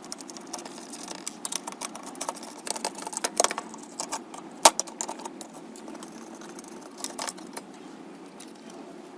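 Irregular small clicks, taps and clinks of hard parts and tools being handled, with one sharper knock about halfway through, over a steady low hum.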